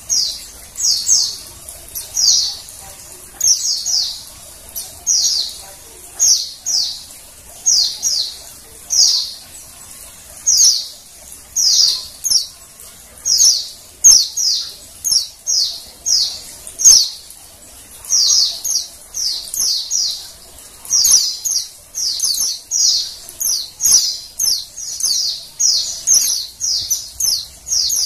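Female white-eye (pleci) calling: short, high chirps, each sliding down in pitch, given singly and in quick runs of two to four. This is the female call that white-eye keepers play to set males singing.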